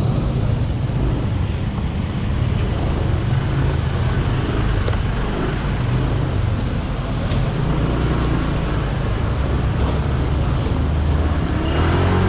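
Honda Click 125i scooter ridden through city traffic: its small engine hums steadily under a constant rush of wind and road noise, with surrounding traffic.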